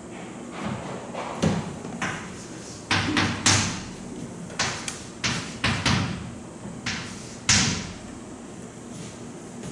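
An irregular series of sharp knocks and clacks, about a dozen, the loudest about three and a half and seven and a half seconds in, over a steady low hum.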